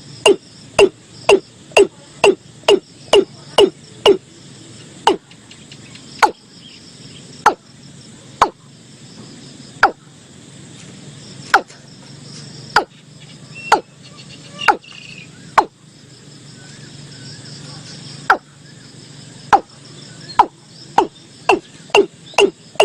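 Watercock (Gallicrex cinerea) calling: a series of short, loud notes, each dropping in pitch. The notes come about two a second at first, spread out to roughly one a second, and quicken again near the end.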